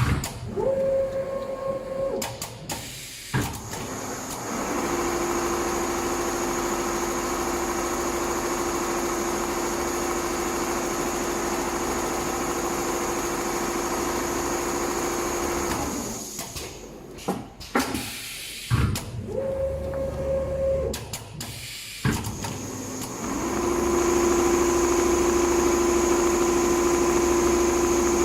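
Multihead computerized leather sewing machine working through its cycle: long stretches of steady running with a constant whine, broken twice by a few seconds of clicks and a short, higher steady whine as it stops and restarts.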